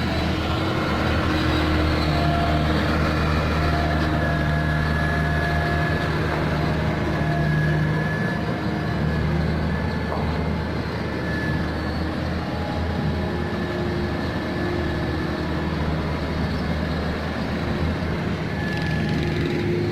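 Heavy diesel engine running steadily with a low drone; its tone shifts slightly about eight seconds in.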